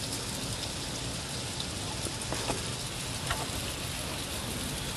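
Freezing rain and sleet falling, a steady hiss with scattered small ticks of ice pellets hitting.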